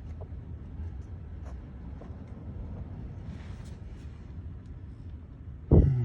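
Faint clicks and scrapes of hands working at a stubborn plastic connector clip on a Jeep's crankshaft position sensor, over a steady low rumble, with one loud thump near the end.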